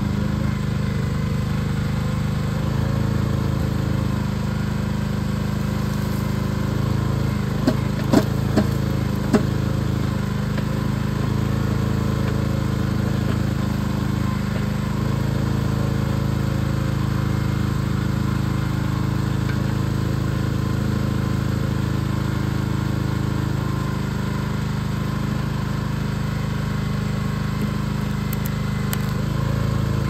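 Small gasoline engine of a Central Machinery towable backhoe running steadily as the hydraulic arm works a tree stump, with four sharp knocks about eight to nine seconds in.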